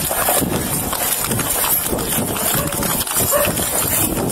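Running footsteps on a body-worn camera, with a quick series of thuds and the camera and gear rubbing and jostling against the wearer's uniform.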